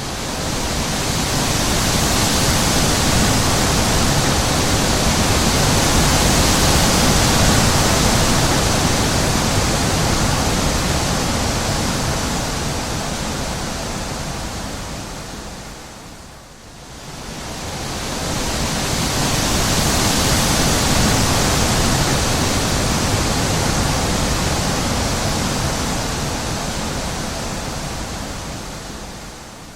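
Wind blowing in two long gusts. Each swells up over a couple of seconds and slowly dies away; the first fades almost out about halfway through before the second builds.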